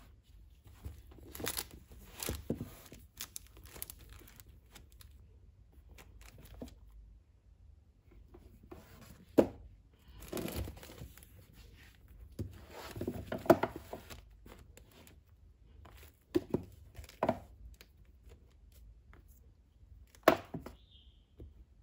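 Paperback manga volumes being handled on a bookshelf: pulled out as a stack, slid and pushed back into a row, giving irregular paper rubbing, scraping and light knocks of books against each other and the shelf. The busiest, loudest stretch of handling comes a little past halfway.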